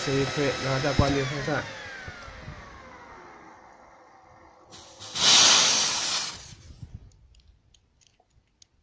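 A 12 V portable high-pressure PCP air compressor's motor is switched off and spins down in a falling whine. About five seconds in, compressed air at 30 MPa vents in a loud hiss for about a second and a half as the bleed screw on the gauge fitting is opened, followed by a few faint clicks.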